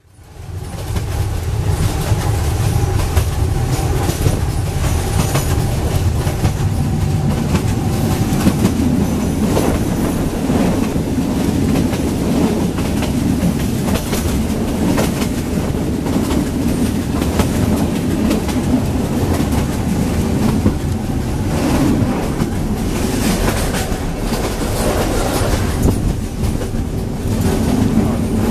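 Moving train heard from inside a passenger coach: a loud, continuous rattle and rumble, with wheels clacking over the rail joints and frequent knocks as the coach jumps and bounces on rough track. The noise fades in over the first second.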